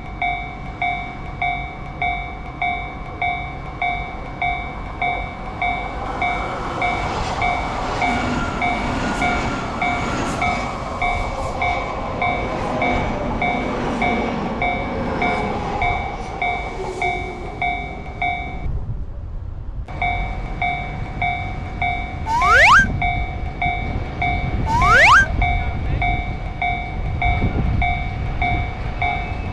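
Japanese level-crossing warning bell dinging in steady repeated strokes while an electric train passes, its running noise and falling whine swelling in the middle and fading out. The bell breaks off for about a second, resumes, and then a train sounds two short rising horn blasts a couple of seconds apart.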